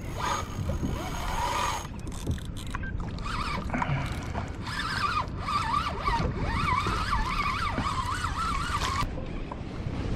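Spinning fishing reel working under load as a fish is fought on a bent rod, giving a wavering whine from about three seconds in that cuts off suddenly near the end. Wind and water noise on the kayak run underneath.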